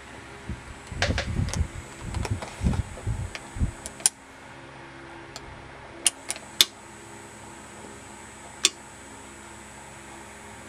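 Aiwa AD-F770 cassette deck's motor and flywheels running on freshly fitted drive belts: a faint steady hum. There are low bumps and rustling in the first few seconds and a few sharp clicks later.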